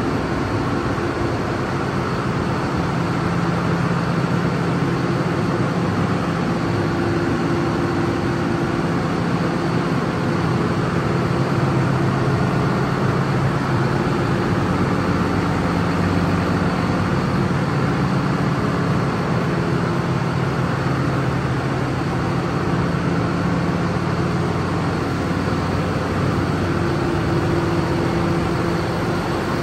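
John Deere 6830's six-cylinder diesel engine idling steadily, a constant low hum.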